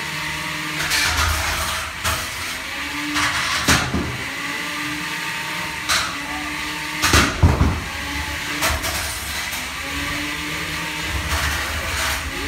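Small combat robots' electric drive motors whining in short spurts as the robots shove each other around a plywood arena, with several sharp knocks and bangs from the robots hitting each other and the arena, the loudest about seven seconds in.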